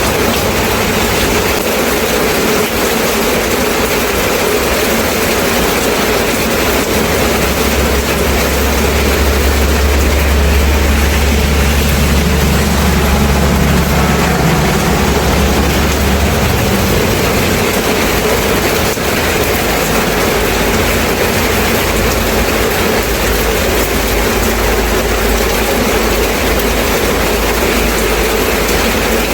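Steady, heavy rain falling. A deep low rumble joins in for about ten seconds in the middle, then fades out.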